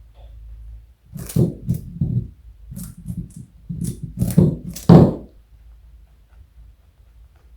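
A rabbit crunching a carrot: a quick series of crisp bites and chews, about three a second for around four seconds, the last ones the loudest.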